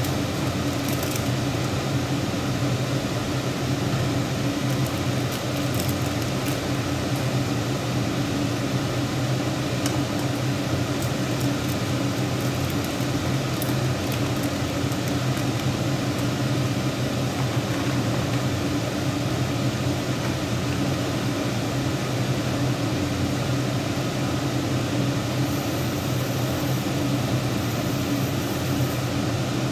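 Steady mechanical hum and whirr of a running kitchen appliance, like a fan, with a low drone beneath it, plus a few faint light ticks.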